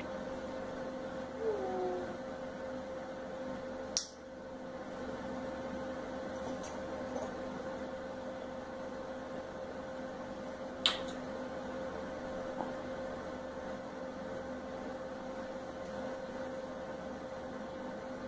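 Steady electrical hum of a quiet room, with two short sharp clicks, about four seconds in and again near eleven seconds.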